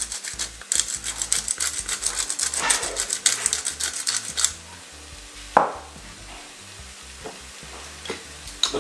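Hand-twisted pepper grinder cracking black peppercorns: a fast run of dry clicks that stops about four and a half seconds in. A single knock follows about a second later.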